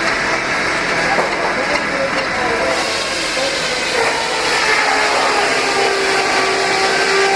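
Peerless Z3 steam traction engine running steadily, belted to a sawmill, a dense, even machine noise with a steady tone joining about two-thirds of the way in.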